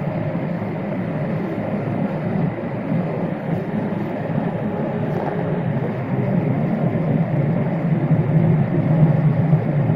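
Boeing 787-8 cabin noise in the climb, heard at a window over the wing: the steady roar of the GEnx-1B turbofan and rushing air over a low drone. It grows a little louder in the last few seconds.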